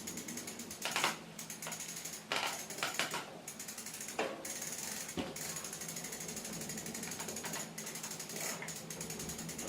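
Metal clicks and knocks of an adjustable spanner turning a crank puller's bolt, pressing the crank arm off the square-taper bottom bracket spindle. The sharpest clicks come in the first half, over a faint, even ticking.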